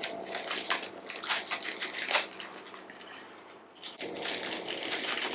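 Small plastic packaging crinkling and rustling in quick irregular crackles as spare-part bags of screws and gears are handled, dropping off for a second or so about halfway through before starting again.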